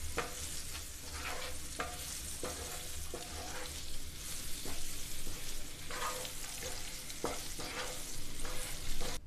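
Oil sizzling in a nonstick frying pan as a spatula stirs whole boiled eggs through fried onion masala, with repeated short scrapes and knocks of the spatula against the pan.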